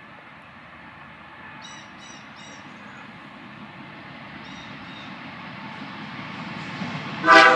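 A CN diesel freight train approaches, its rumble growing steadily louder. A few short, high bird chirps come about two seconds in. Near the end the lead locomotive's horn starts with a loud blast.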